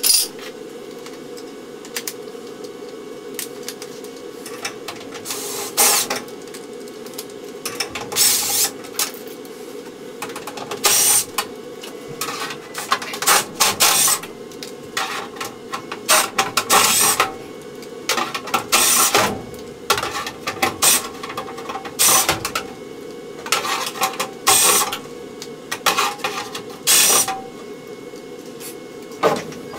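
Cordless drill-driver running in about a dozen short bursts, each under a second, backing out the sheet-metal screws of a furnace cabinet.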